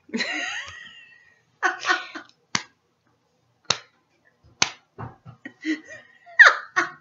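Three sharp smacks, about a second apart, in a small room, with short vocal squeals and laughter-like sounds around them: a rising squeal at the start and another near the end.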